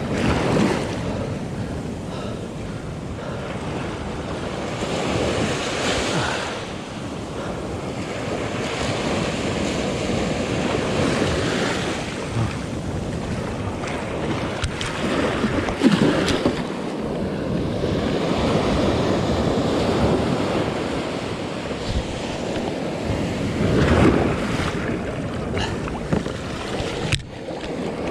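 Ocean surf washing in, with wind buffeting the microphone; the wash swells and eases every few seconds.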